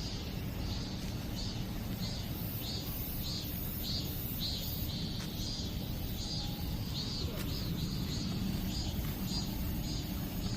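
Outdoor nature ambience: a high, fine-textured chirp repeating about twice a second over a steady low rumble, with a few faint clicks.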